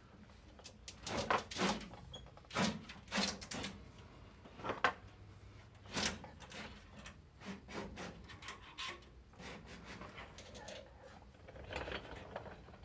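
Irregular knocks, clunks and scrapes of a stainless steel fuel line being pushed by hand through a car's underbody tunnel, the metal tube catching and rattling against the body as it goes.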